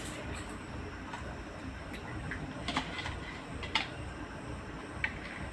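Beaten egg being poured from a bowl into an oiled tiffin box, heard as a few light clicks and taps of the bowl and spoon against the box over a steady low hum.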